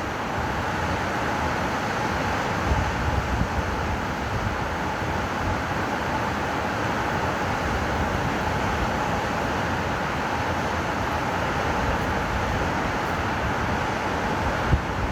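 Waves breaking on the Lake Michigan shore in strong wind: a steady roar of surf, with wind buffeting the microphone in low thumps about three seconds in and again near the end.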